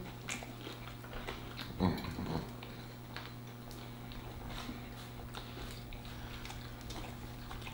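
Close-miked chewing of fried chicken sandwiches: wet mouth smacks and small crunchy clicks, with a louder low mouth sound about two seconds in. A steady low hum runs underneath.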